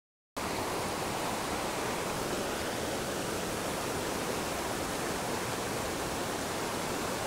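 Steady rushing of a small mountain trout stream spilling over rocks and a riffle into a pool, starting after a brief moment of silence.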